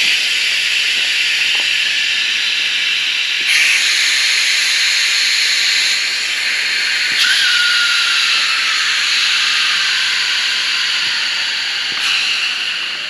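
Air hissing loudly out of the inflatable air beams of a Dometic Ace Air Pro 400 S awning as their valves are opened to deflate it. The hiss starts suddenly and surges again as further valves open, about three and a half, seven and twelve seconds in, with a faint whistle that slowly falls in pitch as the pressure drops.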